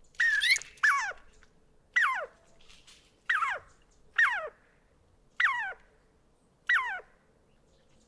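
An animal calling: a series of about seven short calls, each sliding quickly down in pitch from high to low, roughly one a second.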